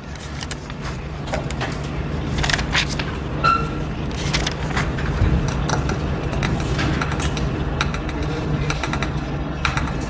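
Classroom room noise: a steady low mechanical hum with scattered clicks, scrapes and rustles, swelling up over the first couple of seconds. A brief squeak comes about three and a half seconds in.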